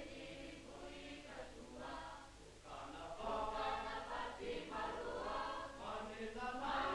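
A choir of voices singing together in slow phrases of held notes.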